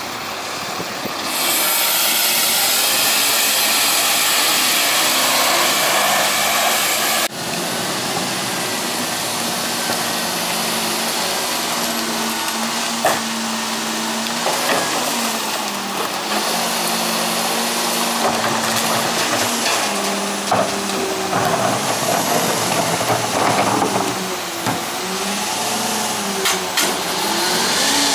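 Pak Mor split-body rear-loader garbage truck working: its engine runs with a loud hiss for the first few seconds, which cuts off suddenly. Then comes a steady hum and wavering hydraulic whine, with clanks as carts are tipped into the hopper.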